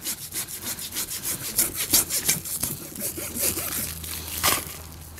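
Farrier's rasp scraping in a run of quick strokes across plastic stretch wrap wound over a hoof cast, filing through the wrap to remove it.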